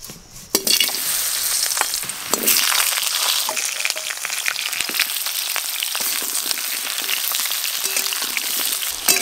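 Raw potato chunks dropped into very hot mustard oil in a wok, sizzling and crackling steadily as they start to fry. The sizzle sets in about half a second in, and there is a sharp knock near the end.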